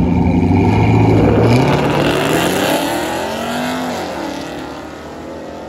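Two drag-racing cars, one a Chevrolet Camaro, held at high revs on the start line, then launching and accelerating away with rising engine pitch. A gear change comes about four seconds in, and the sound fades as they pull away down the track.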